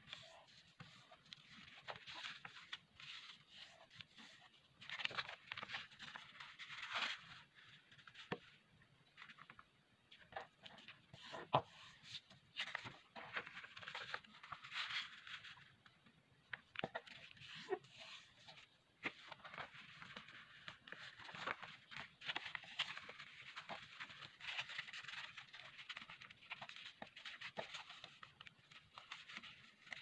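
Origami paper rustling and creasing under fingers as a square sheet is folded and pressed flat, in faint, irregular scrapes and swishes with scattered light ticks.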